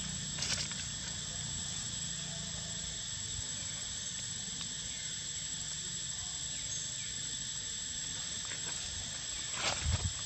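Steady, high-pitched drone of insects, with a couple of brief knocks, one just after the start and a louder one near the end.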